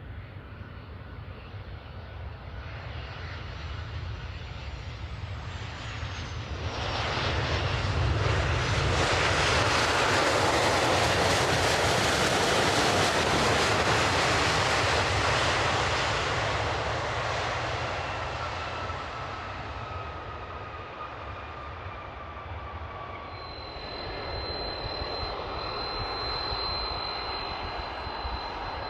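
JAL Boeing 737-800's twin CFM56 turbofans passing on landing approach: jet noise builds, is loudest for several seconds, then eases off with a falling whine as it goes by. A thin steady high whistle comes in near the end.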